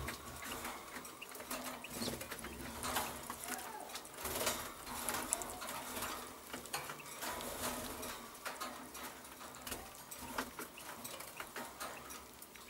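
Faint, irregular small clicks and rustles from a caged male Eurasian bullfinch eating mealworms and shifting on the dry twigs and wire of its cage.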